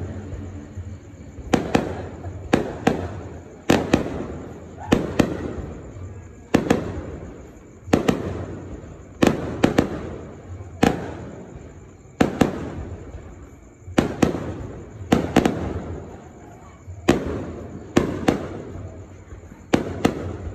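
Fireworks display, aerial shells launching and bursting overhead. A sharp bang comes about every second, often two in quick succession, and each dies away in an echo.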